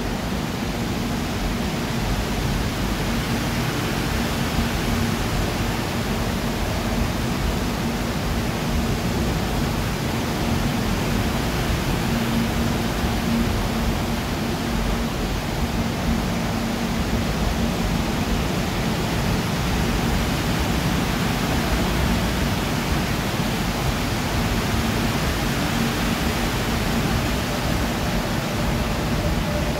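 Seoul Line 4 subway train passing through the station without stopping: a steady rumble of steel wheels on rail with a constant low hum.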